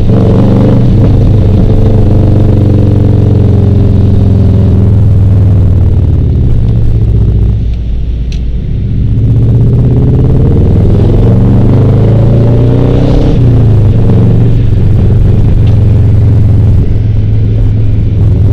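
Subaru Legacy's 2.2-litre flat-four exhaust note through unequal-length headers and a near-straight-pipe exhaust, heard in the cabin with the window open. The note falls as the car slows, drops quieter for a moment about halfway, then rises as it accelerates away and settles into a steady drone.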